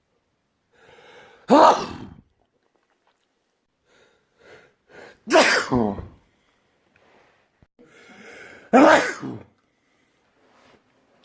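A man sneezing loudly three times, each sneeze led in by a breathy inhale; before the second he catches his breath several times in quick short gasps.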